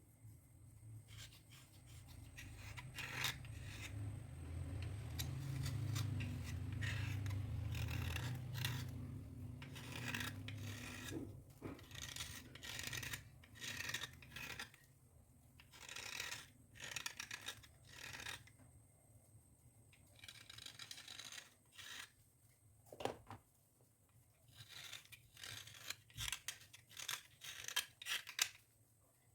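Dry scraping and rubbing at close range: a continuous rasping rub over a low hum for the first ten seconds or so, then a run of short, separate scraping strokes.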